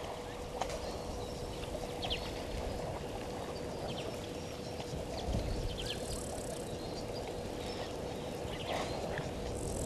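Outdoor waterhole ambience: a steady hiss under a faint constant hum, with a few short bird chirps and the water-splashing of African elephants bathing in the dam.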